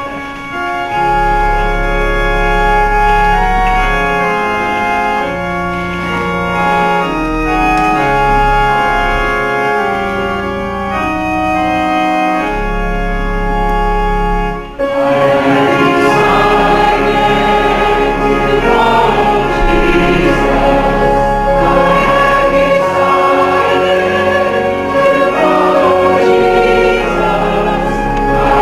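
Church organ playing the introduction to a congregational hymn in held chords over a deep bass. About halfway through it pauses briefly, and then the congregation begins singing the hymn with the organ accompanying.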